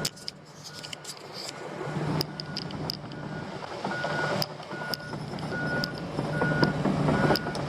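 A construction machine's backup alarm beeping steadily, a little faster than once a second, over the low hum of its diesel engine, growing louder as the machine comes closer, with scattered clicks and crunches.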